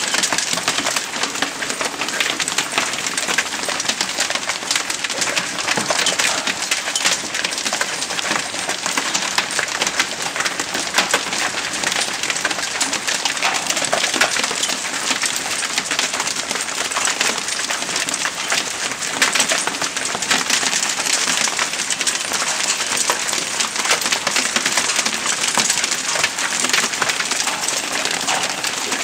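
Hail mixed with rain pelting a balcony deck and patio furniture: a dense, steady clatter of countless small impacts.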